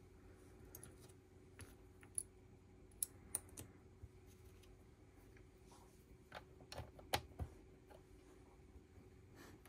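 Plastic Lego bricks being handled and pressed together: scattered sharp clicks and taps at an irregular pace, most of them around three seconds in and around seven seconds in.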